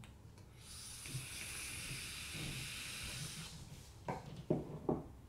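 Hand-held vape mod being drawn on: a steady hiss of air through the atomizer as the coil vaporises the e-liquid, lasting about three seconds, followed by a few short, soft breathy sounds as the vapour is exhaled.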